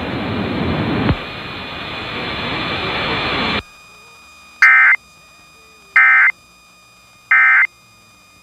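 A steady hiss for about three and a half seconds that cuts off sharply, then three short, evenly spaced bursts of Emergency Alert System digital data tones: the End of Message code that closes the tornado warning test.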